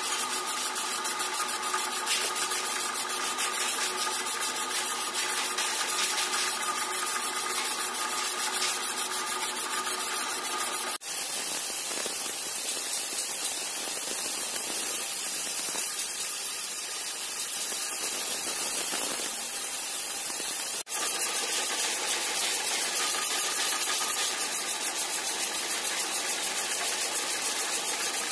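Metal lathe turning a large metal pump disc while the cutting tool faces it: a steady machine drone with held tones and a hiss of cutting. The sound breaks off abruptly twice, about 11 and 21 seconds in, and changes character each time.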